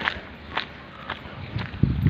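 Footsteps on wet ground during a walk in the rain, about two steps a second, over a steady hiss.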